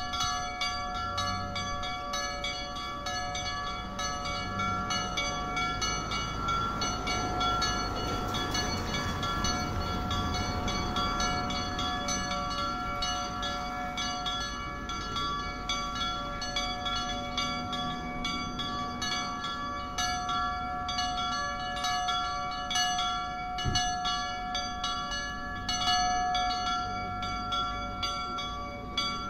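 Two church bells cast by G. B. De Poli, swung by hand in the Friulian style, ringing continuously with repeated overlapping strikes whose tones hang on without a break.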